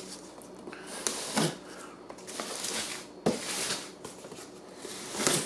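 A knife blade slicing through packing tape on a cardboard box, in several short scraping strokes, with one sharp tap about three seconds in.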